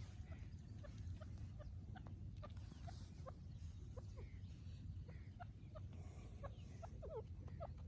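Francolin partridge giving soft, short clucking notes, several a second, over a low steady rumble.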